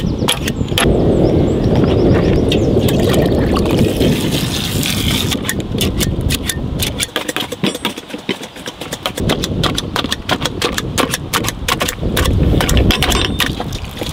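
Perforated metal masher pounding peeled bananas in a large aluminium pot: rapid, irregular knocks and clicks, over a low rumbling noise, easing off for a couple of seconds about seven seconds in.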